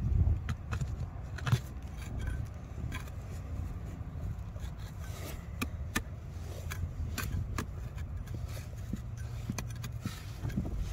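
A steel digging tool ticking, clinking and scraping against basalt and loose rock bits in irregular sharp little knocks, prying gently at a nodule that is starting to come loose. A steady low rumble runs underneath.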